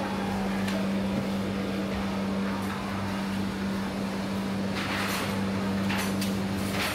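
Busy city street ambience: a steady low mechanical hum over general traffic noise, with a few short rushes of noise in the second half.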